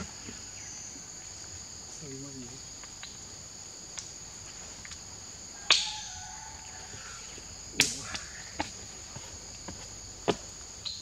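Steady high-pitched drone of insects, with a few sharp clicks over it, the loudest about six and eight seconds in.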